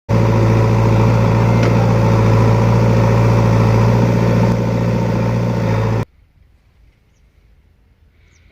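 Heavy diesel engine of the tractor or backhoe running at a steady speed, cut off abruptly about six seconds in, leaving only a faint background.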